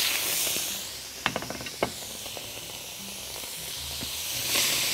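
Raw shrimp sizzling and hissing in hot oil in a wok, just after going in. The sizzle eases a little after the first second, with a few light clicks, then swells again near the end.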